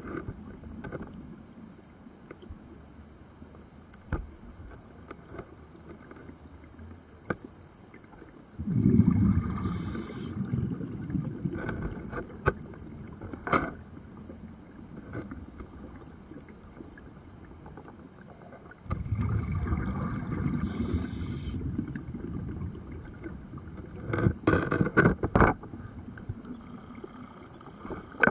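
Scuba diver breathing underwater through a regulator: two long breaths, about 8.5 s and 19 s in, each a few seconds of bubbling rumble with a short hiss, and scattered sharp clicks between them.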